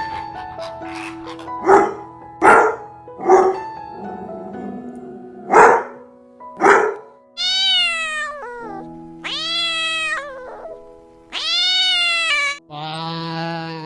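Five short, sharp animal calls, then a cat meowing three long times, each meow rising and then falling in pitch, over soft background music.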